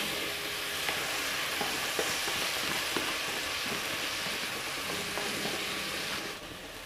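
Raw white rice poured into a hot, seasoned aluminium pot and sizzling steadily as it toasts, with a few light knocks of a wooden spoon against the pot. The sizzle drops away near the end.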